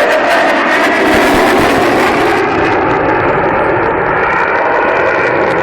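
Loud, continuous jet noise from a Eurofighter Typhoon's two Eurojet EJ200 turbofan engines. The sharp, hissing top end of the sound falls away about two and a half seconds in, as the jet moves off.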